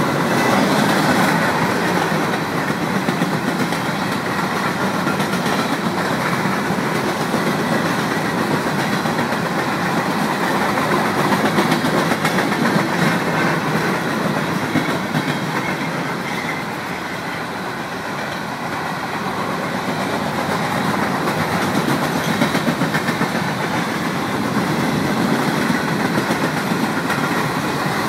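Covered hopper cars of a Union Pacific grain train rolling past at close range: a steady rolling noise of steel wheels on rail, with quick repeated clicks as the wheels pass. It dips a little about two-thirds of the way through.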